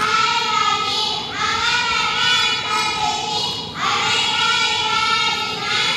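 Two young girls reciting a message together in slow, drawn-out, sing-song unison, in three long phrases with short breaks between them.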